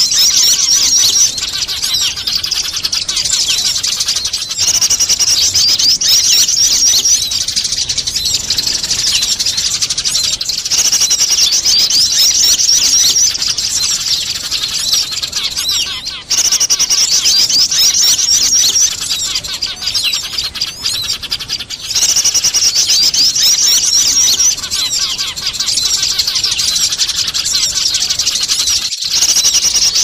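Dense, busy chirping of Eurasian tree sparrows squabbling, mixed with calls of other small birds: a bird-lure track for drawing small birds in. Louder stretches of rapid high chirps return about every six seconds.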